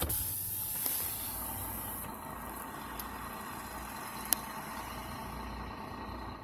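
Steady road and engine noise inside a moving vehicle, a low rumble under a hiss, with one sharp click about four seconds in.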